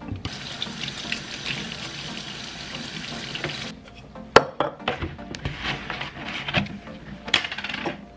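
Tap water running into a stainless-steel sink for about three and a half seconds, stopping abruptly. Then come the clicks and knocks of a plastic bleach jug being handled, and a short pour of liquid near the end.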